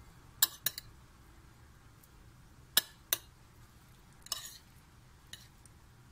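A spoon clinking and scraping against a plate as rice is scooped: a handful of short, sharp clinks, the loudest about half a second and about three seconds in, with a brief scrape just after four seconds.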